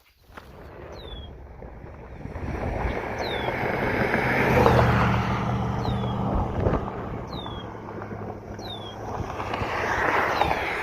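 Traffic passing on the road: a vehicle's tyre and engine noise swells, goes by about halfway through and fades, then another vehicle approaches near the end.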